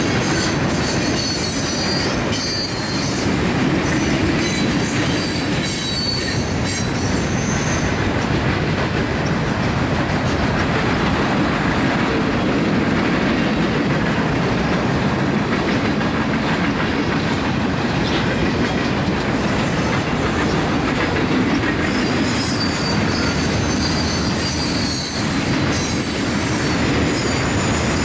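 Freight train rolling past, a steady noise of the moving cars, with wheel flanges squealing in high, wavering tones for the first several seconds and again near the end.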